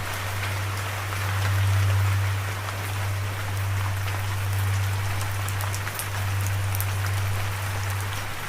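Steady rain falling on a surface, an even hiss of drops with scattered individual drop ticks, over a low steady hum.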